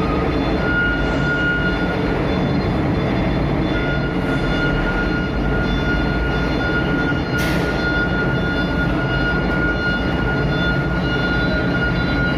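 Large truck engine running steadily with a low rumble and a steady high whine over it; a short sharp hiss about seven seconds in.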